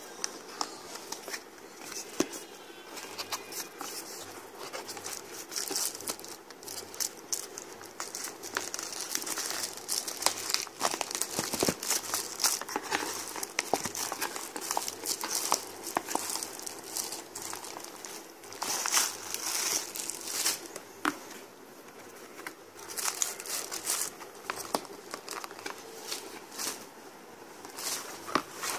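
Plastic wrapping and cardboard packaging crinkling and rustling as a boxed car speaker is unpacked by hand, with dense irregular crackles throughout.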